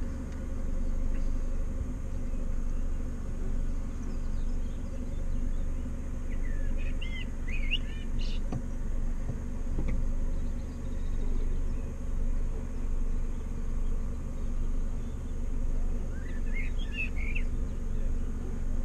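Car driving slowly, its engine and tyres making a steady low rumble that gently rises and falls, heard from inside the cabin. A bird chirps briefly twice outside.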